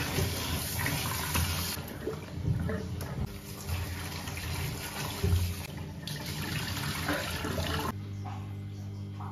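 Kitchen tap water running into a stainless steel sink while a plastic basin is rubbed and rinsed by hand under the stream, with a few low knocks. The water sound stops abruptly about eight seconds in, leaving a quieter steady hum.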